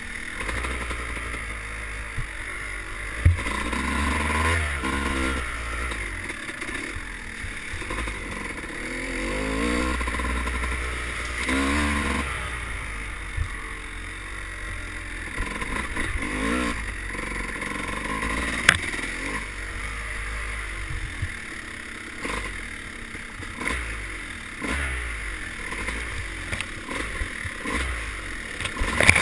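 Dirt bike engine heard from the rider's helmet, revving up and easing off again and again as it is ridden. A few sharp knocks stand out over it.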